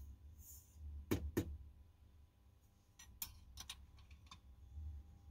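Faint clicks and light knocks of brass cartridge cases and reloading gear being handled on a bench: two knocks a little after the first second, then a cluster of sharper clicks around three to four seconds in.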